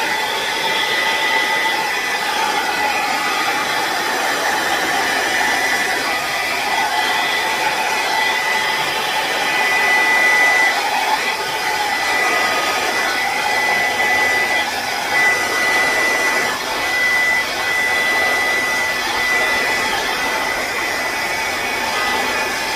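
Hand-held hair dryer running on its low setting: a steady rush of blown air with a thin high whine from the motor.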